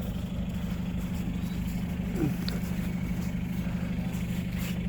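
A vehicle engine idling steadily with an even low hum.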